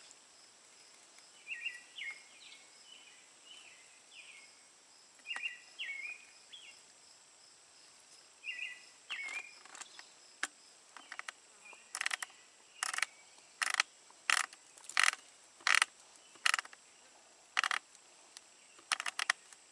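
Sharp metallic clicks, about one a second through the second half, as a wrench and pliers grip, turn and slip on a brass hose fitting being tightened. Earlier, short bird chirps sound over a steady high insect drone.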